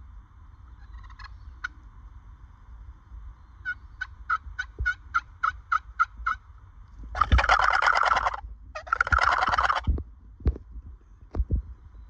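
Wild turkey gobbler gobbling twice, loud and close, each gobble about a second long. Before the gobbles comes a run of about nine evenly spaced turkey yelps, roughly three a second.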